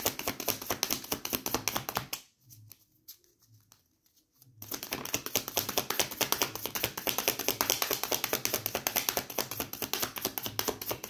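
A deck of tarot cards being shuffled by hand: a fast patter of clicks as the cards flick against each other. The shuffling stops for about two seconds a couple of seconds in, then starts again.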